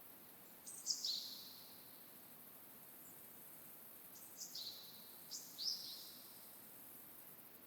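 A forest bird giving short, high calls that drop in pitch, in three quick bunches: about a second in, then twice more around the middle. Behind them runs a steady high hiss.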